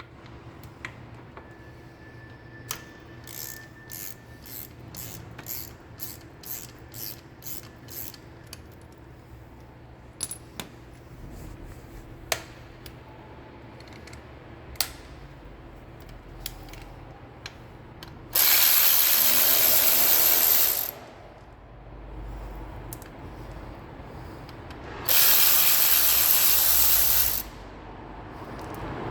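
Socket ratchet clicking as motorcycle foot-peg bolts are worked, a run of clicks about two a second, then scattered single clicks and taps. Later come two loud bursts of hiss, each about two and a half seconds long.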